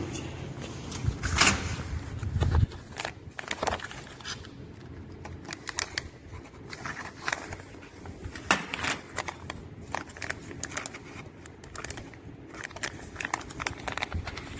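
Dual-chamber vacuum packaging machine: a steady low pump hum that cuts off sharply about two and a half seconds in. It is followed by scattered clicks and crinkling of plastic.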